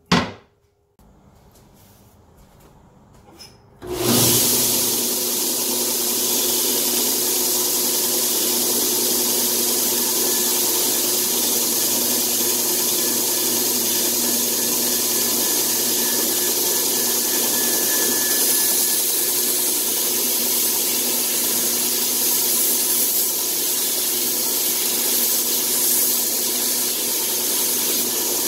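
A belt grinder comes in about four seconds in and runs steadily, with a steady hum under its noise, as the steel head of a Husqvarna carpenter's axe is ground against the belt to sharpen the edge.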